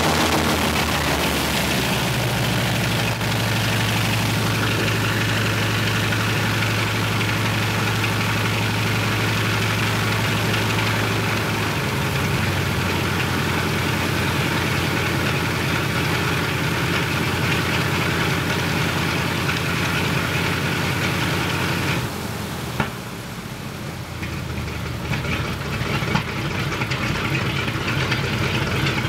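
Ilyushin Il-14's Shvetsov ASh-82T radial piston engine running during a ground run-up, the propeller turning. Its speed shifts a little about a second in and again about twelve seconds in; about 22 seconds in it is throttled back, running quieter and less evenly with a couple of sharp pops.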